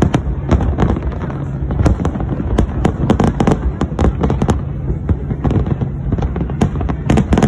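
Aerial firework shells bursting in quick succession: many sharp bangs, several a second, over a steady low rumble, with a denser cluster of bangs near the end.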